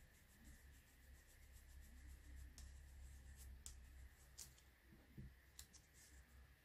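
Near silence: faint soft dabbing and rubbing of a foam blending sponge on embossed card, with a few light ticks and a low background rumble.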